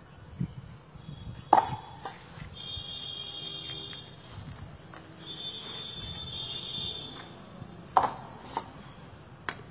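Fired clay bricks knocking against each other in a tall stack: a few sharp clacks, the loudest about a second and a half in and again around eight seconds in. A high, thin steady whine runs in the background in between.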